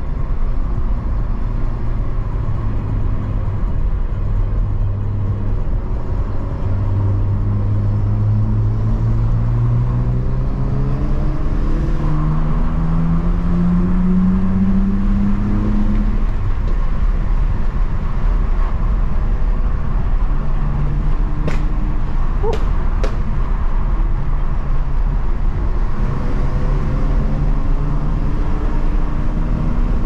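BMW E46 325i's inline-six engine heard from inside the cabin, holding a steady note, then rising in pitch for about ten seconds as it accelerates in gear, dropping at a gear change about halfway through and running on at a steadier cruise, over low road rumble. A few sharp clicks come about two-thirds of the way through.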